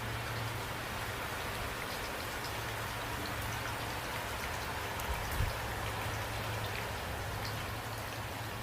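Steady rain falling: an even hiss with scattered individual drops ticking, over a steady low rumble. One soft low thump comes about five seconds in.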